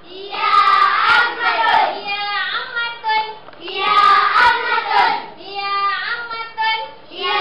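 Children's voices singing a short song, the same melodic phrase coming round about every three and a half seconds, with a few sharp hand claps about a second in and again near the middle.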